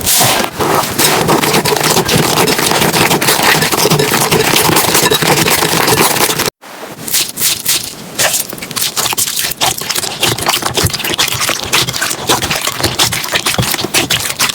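Slime being squeezed, pressed and pulled by hand, making dense crackling, popping and squelching. It cuts out briefly about six and a half seconds in, then starts again.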